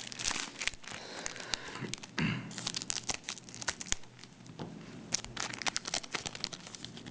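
Foil trading-card booster-pack wrapper crinkling and tearing as a pack is opened, with many small irregular crackles.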